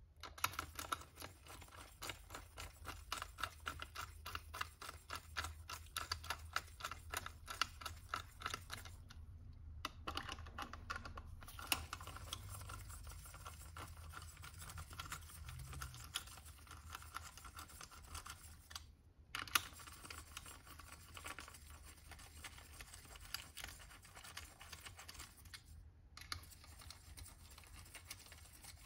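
Hand ratchet clicking rapidly as small M6 fasteners are run down by hand into the supercharger's aluminium housing, with short pauses about ten, nineteen and twenty-six seconds in.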